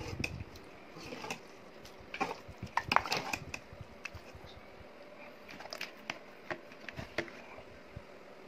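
A steel ladle clinking and scraping against a metal pot and a ceramic plate while curry is served, in irregular clinks and knocks, the loudest about two to three seconds in.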